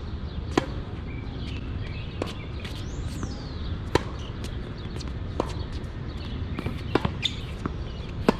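Tennis rally: sharp pops of the ball striking racket strings and court, roughly every one and a half seconds, some louder than others, over a steady low rumble.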